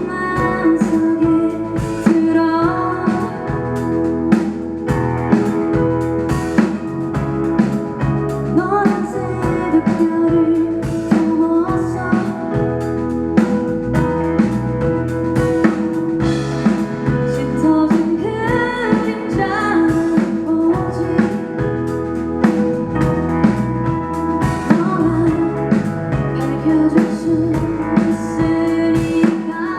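Live rock band playing mid-song: drum kit, electric guitar, bass and keyboard, with a lead vocal singing over them.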